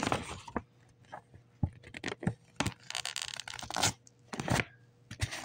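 Printed paper cover insert of a DVD case being torn by hand: a string of short ripping and crackling tears, the longest about three seconds in.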